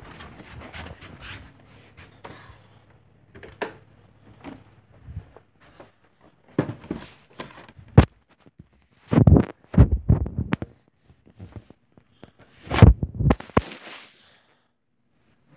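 Phone being handled right against its microphone: rubbing and scraping with scattered bumps, and heavy thumps about nine to ten seconds in and again around thirteen seconds.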